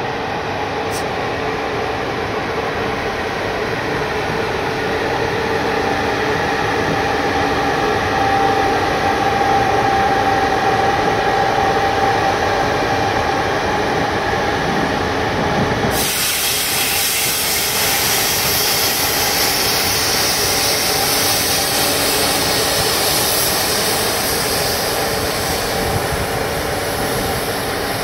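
CFR class 47 electric locomotive moving off slowly, its equipment running with a steady hum and a whining tone that rises a little. About halfway through, a loud high hiss comes in suddenly and stays.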